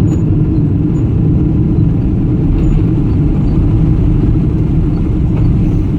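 Jet airliner cabin noise aboard a Boeing 777-300: a loud, steady low rumble of engines and airflow.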